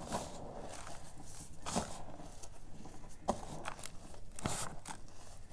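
Bare feet stepping on and grinding into a layer of crushed gym chalk, which crunches and crumbles underfoot: a run of irregular soft crunches with three sharper cracks, about two, three and four and a half seconds in.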